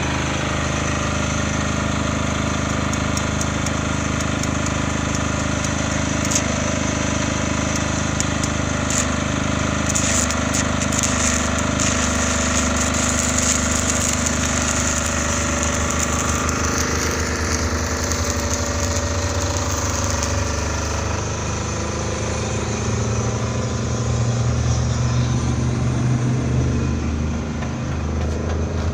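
Diesel engine of a PowerROC D55 crawler drill rig running steadily, its note shifting a little about twenty seconds in.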